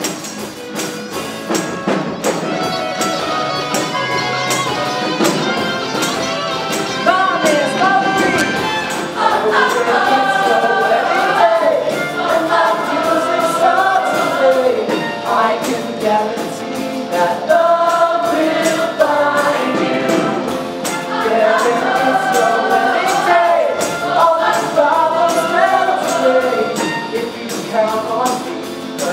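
Stage musical cast singing together in chorus over a live band, with drums keeping a steady beat.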